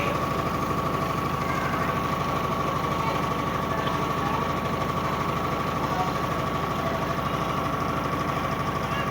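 Electrolux LBU15 top-loading washing machine in its spin cycle, running with a steady whine over a fast, continuous knocking rattle: the abnormal spin noise the owner is showing.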